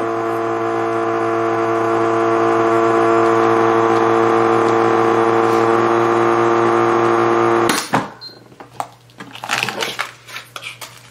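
Fresko vacuum sealer running its vacuum-and-seal cycle with a steady hum that cuts off suddenly about eight seconds in. Then plastic bag rustling and clicking as the sealed bag is handled.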